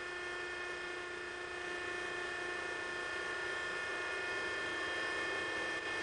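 Selco vertical baler's electric motor and hydraulic pump running steadily as the platen is raised to its fully retracted position, a constant hum with a high whine over it.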